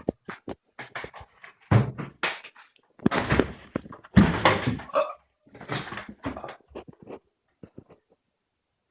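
A string of irregular knocks and thuds. The three heaviest come about a second apart in the middle, and they die away after about seven seconds.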